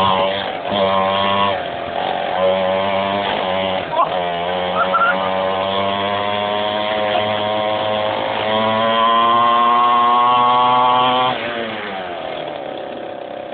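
49cc mini quad engine revving up and down while riding, held at high revs for a few seconds before easing off near the end.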